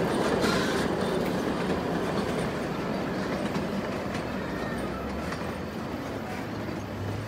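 Puffing Billy narrow-gauge steam train rolling across a timber trestle bridge: steady wheel and carriage noise on the rails, slowly fading as the train passes.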